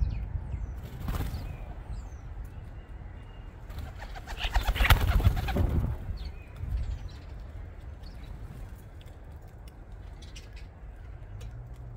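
Bird wings flapping in a rapid flutter, loudest about four to six seconds in with a weaker flutter about a second in, plus a few brief high chirps over a low rumble.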